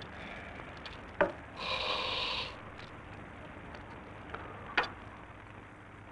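Quill pen scratching on paper as a man writes, with one longer scratchy stroke of about a second near the middle and a couple of sharp ticks, over the steady hiss of an old film soundtrack.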